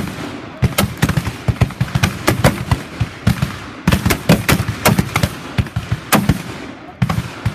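A team of black-powder cap-and-ball revolvers firing a rapid, ragged string of overlapping shots, several a second, with brief lulls about half a second in, about three seconds in and near the end.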